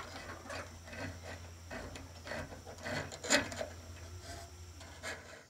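Steel cable being fed through a hole in the coop's plywood wall, rubbing and scraping against the wood in irregular scuffs, with a sharper click about three seconds in.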